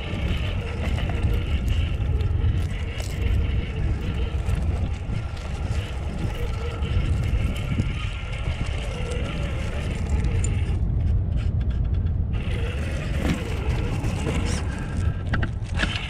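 Radio-controlled truck driving over pebbles and sea glass: a steady low rumble from its running gear, with the crunch and clink of stones and glass under its tyres, which thins out for a moment about eleven seconds in.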